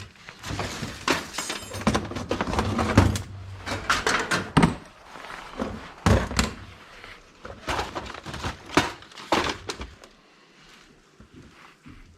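Hand tools and driver bits being gathered up and set down, an irregular run of knocks and clinks that thins out about ten seconds in.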